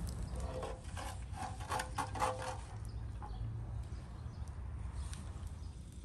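An animal calling for about two seconds, a pitched, quavering call, over a low steady rumble.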